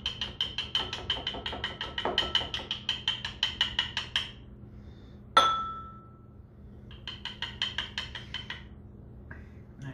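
A spice container shaken and tapped over a metal measuring spoon in rapid clicking taps, about six or seven a second, in two runs with a pause between. Midway comes a single sharp, ringing clink.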